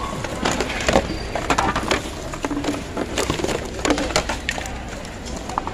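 Plastic thermos flasks, jugs and shoes in a heap of discarded household goods being shifted and handled: irregular clattering knocks and rustling.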